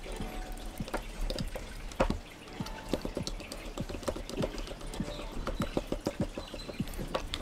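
Small screwdriver turning a screw into the metal shell of an airsoft AEG Version 2 gearbox: irregular small clicks and scrapes of the tip and screw, with one louder click about two seconds in.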